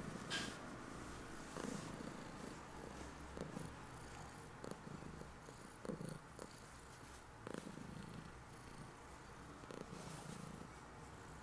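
Domestic cat purring steadily while being petted, with a few brief soft noises over the purr.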